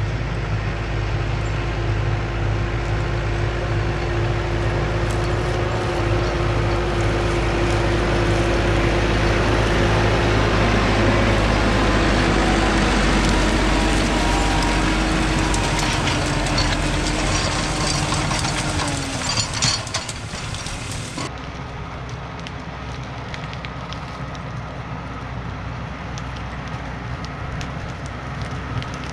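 New Holland T4.100 tractor's diesel engine pulling a five-shank chisel plow, with crackling from the shanks tearing through soil and corn stalks. It is loudest as it passes close, about halfway through, then drops to a fainter, distant engine sound about two-thirds of the way in.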